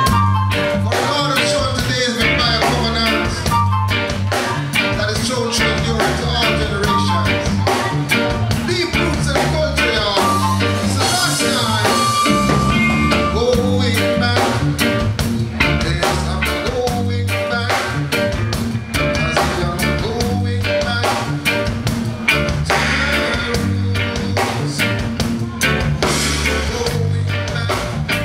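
Live band playing with electric guitars, bass and drum kit, a repeating bass line under it, and a male singer singing into a microphone.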